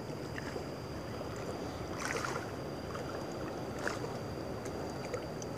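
Steady wash of wind and sea water around a small fishing boat, with a faint thin high whine under it and a couple of soft taps about two and four seconds in.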